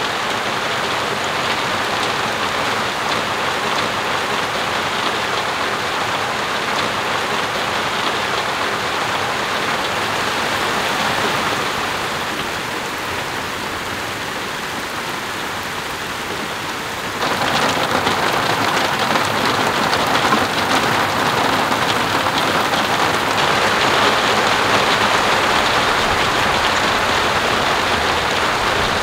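Steady rain falling, an even hiss of drops that eases a little for a few seconds past the middle and then comes back heavier all at once.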